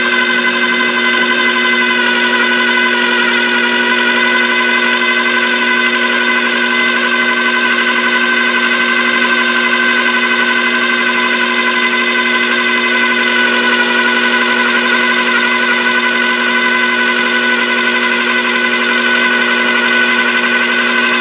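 Food processor motor running steadily at one pitch, its blade mixing butter-and-flour pie dough as cold ice water is worked in to bring it together.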